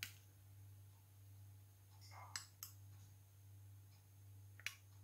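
A few faint clinks of a metal spoon against a glass bowl and plate while vinaigrette is spooned over leeks: one right at the start, two close together about halfway, and one near the end, over a low steady hum.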